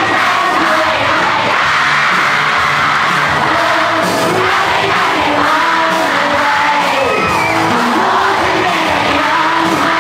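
Live rock band playing: electric guitars, bass guitar and drum kit, with a singer singing into a microphone over them.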